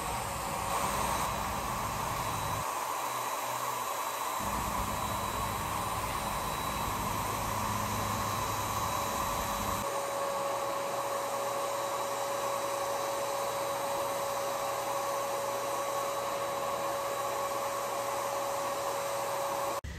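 Earlex 5500 HVLP paint sprayer running, its turbine blowing a steady hiss of air through the hose and spray gun as paint goes on. The sound shifts about halfway through: the low rumble drops away and a steady hum remains.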